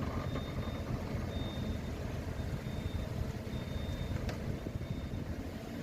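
Steady low rumble, like a running vehicle, with a faint high-pitched beep that comes and goes in short pulses.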